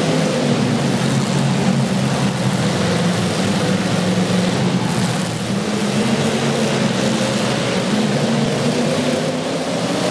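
Demolition derby car engines running steadily and loudly under a dense wash of noise.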